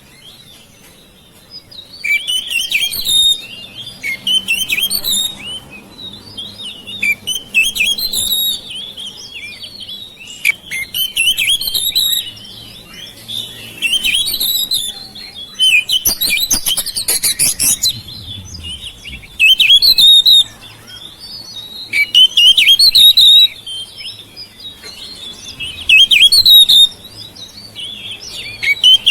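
Oriental magpie-robin (kacer) singing: loud phrases of quick varied whistles and rasping notes, each a second or two long, repeated after short pauses. A denser, harsher stretch comes about halfway through.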